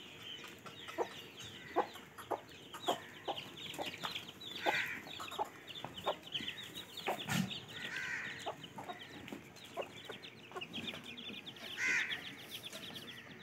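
Chickens clucking in short, repeated calls, with a few louder calls about 5, 8 and 12 seconds in, over dense high chirping of small birds.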